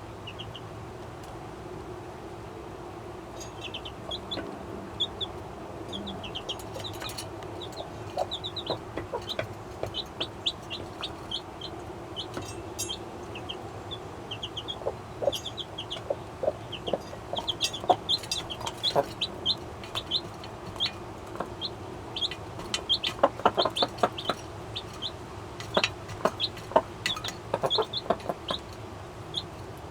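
Jersey Giant mother hen making low, quick chuckling clucks to call her chicks to food, over many high peeps from the baby chicks. The peeping starts a few seconds in, and the clucking grows denser in the second half; a steady low hum runs underneath.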